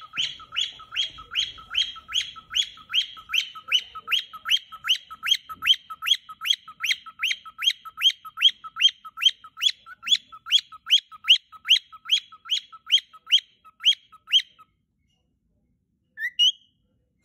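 Cockatiel singing: a long run of quick, rising chirps, about three a second, that stops a few seconds before the end, followed by one short call.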